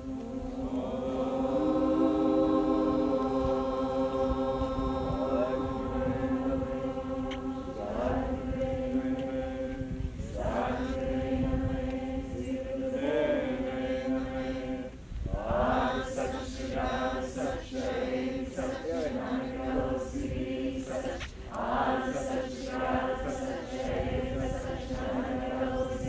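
A large group chanting a prayer in unison: long notes held mostly on one steady pitch, broken every few seconds by short pauses for breath.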